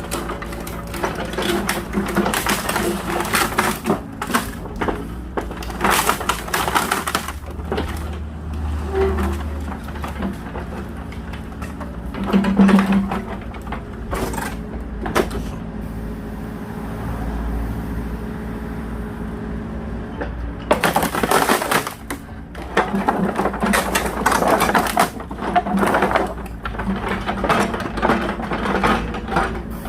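Small agricultural excavator's engine running steadily while wooden pallets crack, splinter and clatter irregularly as the machine pushes and breaks them up for firewood.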